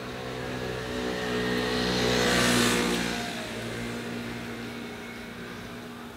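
A motor vehicle passing by: its noise swells to a peak about two and a half seconds in and then fades, over a steady engine hum.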